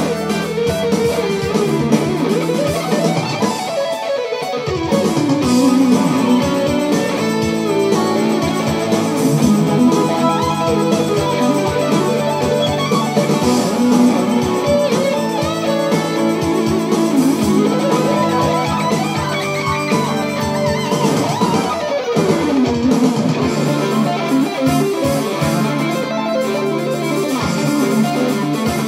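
GJ2 electric guitar playing fast lead runs, with several quick runs sweeping up and down in pitch.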